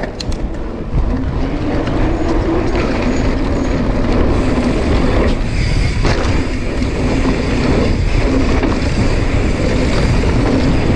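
A dirt jump mountain bike being ridden, heard through its action camera. Wind rushes over the microphone over the rumble of tyres on dirt and the rattle of the bike. It gets louder about a second in as speed builds, with a couple of knocks about halfway through.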